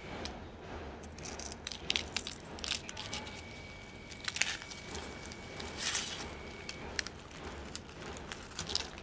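Crisp deep-fried coconut and rice-grain coating crackling and the paper wrapper crinkling as fingers break apart a fried banana roll: irregular sharp crackles, several louder snaps among them.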